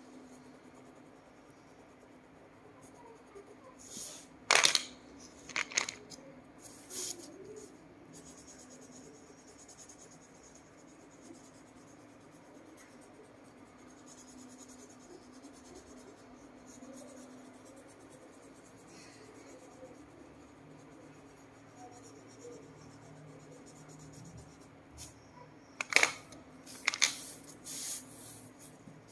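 Wax crayons clicking as they are put down and picked up: one cluster of sharp clicks a few seconds in and another near the end, with faint crayon strokes on paper and a steady low hum between them.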